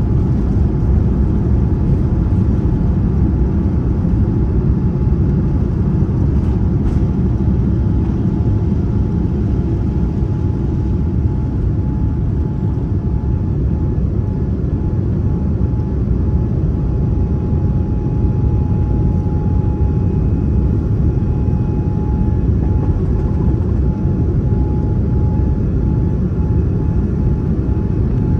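Steady low rumble of engine and airflow noise inside the cabin of a Boeing 787-9 airliner, with a faint steady whine above it that grows a little clearer about halfway through.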